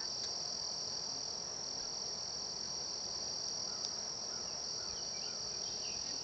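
Steady insect chorus of crickets, a continuous high-pitched drone with a few faint short chirps near the end.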